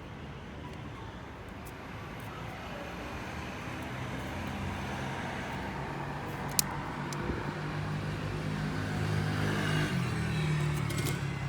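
A motor vehicle's engine running nearby, growing louder over several seconds and easing off near the end, with a single sharp metallic click about six and a half seconds in.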